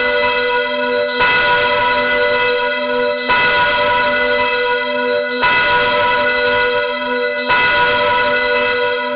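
A single church bell tolling, struck about once every two seconds, four strokes in all. Each stroke rings on at the same pitch until the next.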